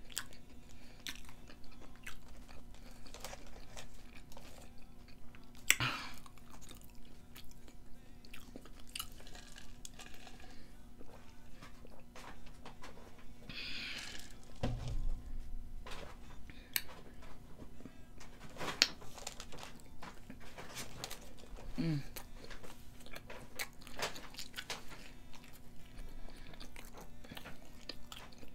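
Close-up eating sounds of a person chewing a burger, hot dog and fries: wet mouth clicks and soft crunches scattered throughout, over a faint steady hum.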